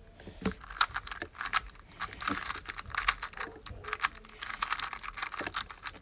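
Dayan Tengen 2x2 speed cube being turned rapidly by hand during a timed solve: a dense run of light plastic clicks and rattles starting about a third of a second in.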